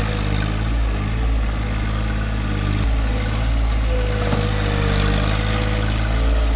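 A John Deere 1025R compact tractor's three-cylinder diesel runs steadily under load while the loader's toothbar digs into a bush's root ball. A faint wavering whine comes and goes twice, and the engine note shifts slightly about halfway through.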